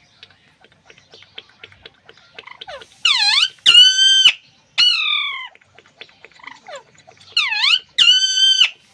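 Alexandrine parakeet calling: soft clicks, then five loud, ringing calls in two groups, some swooping down and back up and one falling, with the loudest call near the end.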